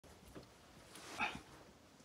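A Yorkshire terrier gives one short, high yip a little over a second in, with fainter short sounds before it.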